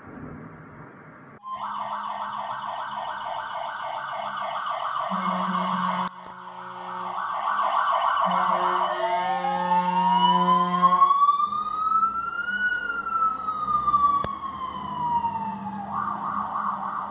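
Jelcz GCBA fire engine on an emergency run. Its electronic siren starts about a second and a half in with a fast pulsing tone, and its air horns sound low blasts twice. The siren then switches to a slow wail that rises and falls before the fast pulsing tone returns near the end.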